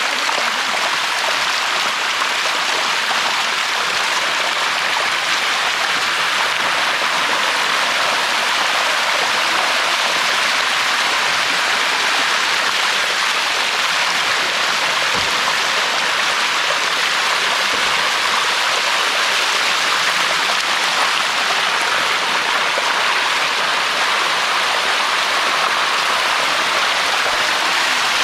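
Water rushing steadily down a waterfall cascade, a loud even rush with no breaks.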